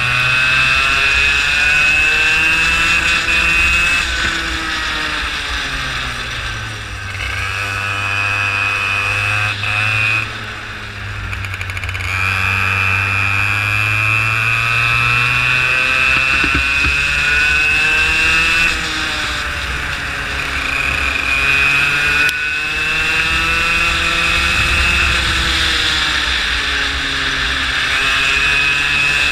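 Racing go-kart engine heard from onboard, its pitch climbing as it accelerates and falling back several times as it slows, over and over around the track. A steady high whine runs above the engine.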